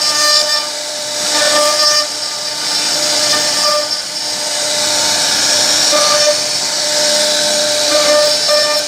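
CNC router spindle whining steadily as its bit carves into a wooden board, with a hiss of cutting noise that swells and eases as the bit moves.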